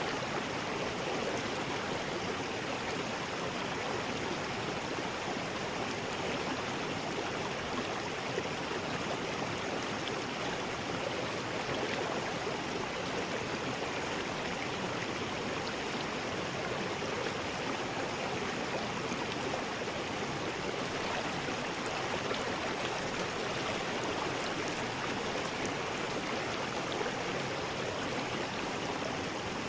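River rapids: water rushing over rocks in a steady, unbroken roar.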